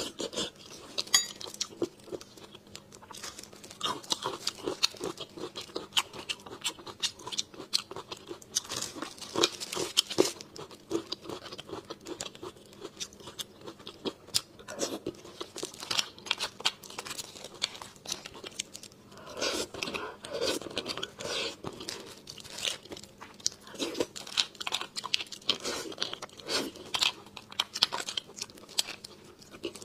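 Close-miked eating of bone marrow: wet chewing and mouth clicks, mixed with a metal spoon scraping marrow out of a split roasted bone. The sound is a steady run of small sharp clicks, busiest about two-thirds of the way through.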